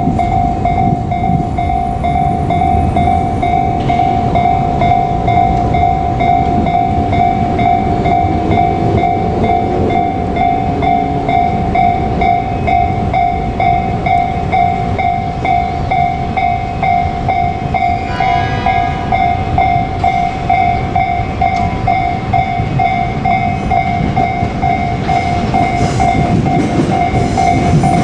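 Level crossing warning bell ringing steadily in a repeating electronic clang over the heavy rumble of electric trains passing: a JR Kyushu 787 series limited express and an 817 series train crossing each other. A brief train horn blast sounds about eighteen seconds in.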